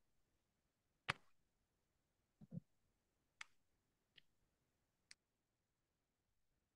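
Near silence broken by a few faint, isolated clicks: a sharper click about a second in, a short low knock about two and a half seconds in, then three faint ticks about a second apart.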